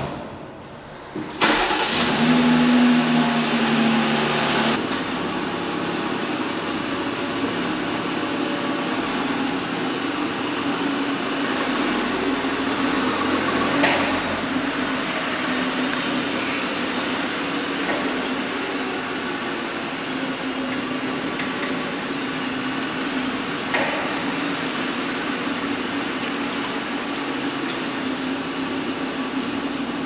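Jeep Gladiator's V6 engine starting about a second in, a little louder for the first few seconds, then running steadily as the truck moves off, with a couple of faint short knocks.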